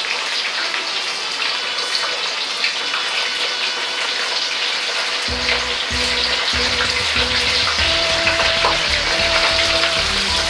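Squid and scallops deep-frying in hot oil in a wok: a steady, dense sizzle.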